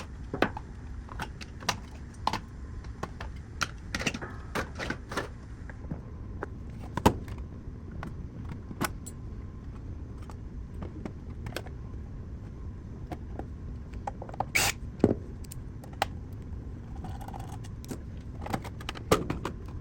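Scattered clicks and clinks of plastic casing and small metal parts being handled as an Xbox Series S is taken apart, over a steady low hum.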